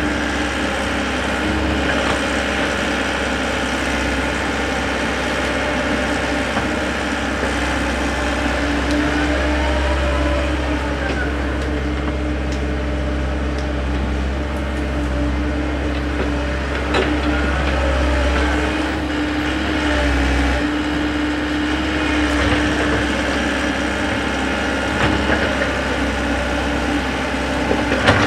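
Komatsu wheeled excavator's diesel engine running steadily while the boom and bucket dig earth, with a few short knocks along the way.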